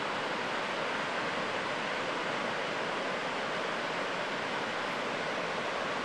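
Pacific Ocean surf breaking in several rows of waves offshore, heard as a steady, even rush of water with no single wave standing out.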